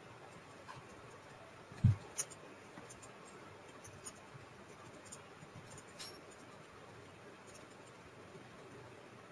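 Faint, scattered clicks of typing on a computer keyboard, with a short dull thump and a click about two seconds in.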